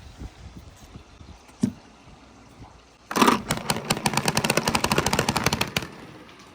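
Marbles clicking along a wooden marble-run track: a few light clicks, then about three seconds in a fast, even clatter of sharp clicks, about fifteen a second, lasting nearly three seconds.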